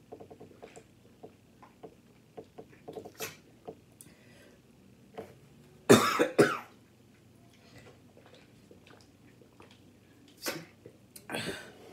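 A person gulping water from a plastic bottle with small swallowing clicks, then coughing twice loudly into a napkin about six seconds in, with more coughing and breathing near the end.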